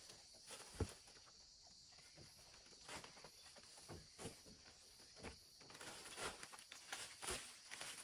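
Faint scattered light knocks and rustles, growing busier in the last couple of seconds, over a steady high hiss.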